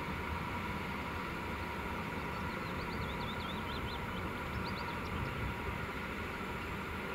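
Regional electric multiple unit approaching slowly along the platform track: a steady low rumble with a faint steady hum. A few quick high chirps sound in the middle.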